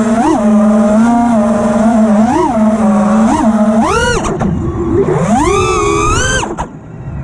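Motors of a 5-inch FPV freestyle quadcopter (T-Motor F60 Pro IV 1750kv on 6S with Ethix P3 props) heard from its onboard camera: a steady whine with short throttle blips about once a second, then two long climbs in pitch as the throttle is punched, and a sharp dip in level near the end.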